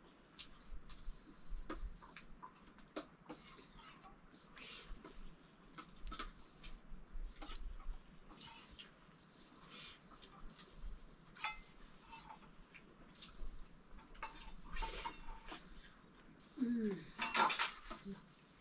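Steel plates and utensils clinking and scraping lightly and irregularly as two people eat. Near the end there is a short louder clatter.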